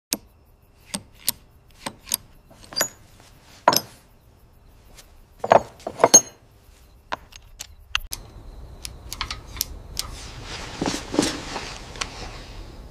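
Metal hand tools clinking and knocking against engine parts in a series of sharp, irregular clinks, with a soft hiss coming in about eight seconds in.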